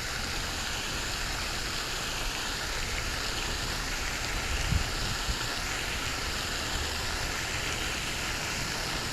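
Steady rushing hiss, like running water, with a soft thump a little past halfway.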